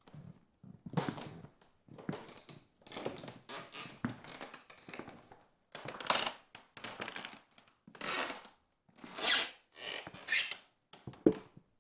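Creaking: a run of irregular creaks and scrapes, each lasting a fraction of a second to about a second, the loudest about nine seconds in.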